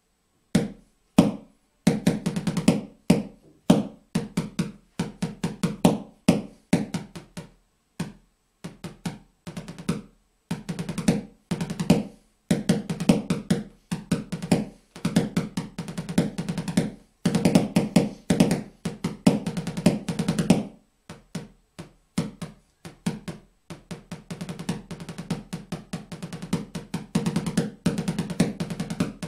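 Snare drum played with sticks in a rudimental etude: fast, dense runs of strokes in short phrases with brief gaps between them, running on without a break over the last several seconds.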